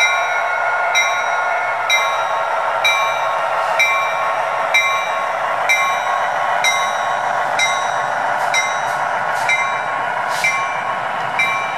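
HO-scale Amtrak F59PHi model's sound decoder playing the locomotive bell, struck about once a second, over the steady run of its EMD 710 twelve-cylinder turbocharged diesel engine sound from a small onboard speaker.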